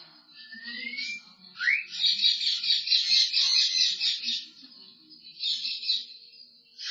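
African grey parrot making mimicked sound effects, heard through a security camera's microphone: two rising whistles, then a raspy, rapidly pulsing buzz lasting about two seconds, and a shorter burst of it near the end.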